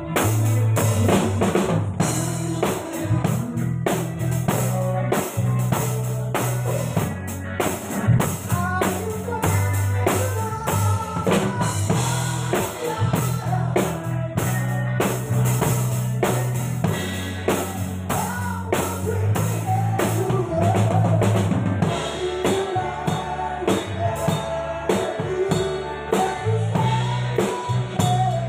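Live band music led by a drum kit played hard, with bass drum, snare and cymbal hits over guitar and steady low bass notes.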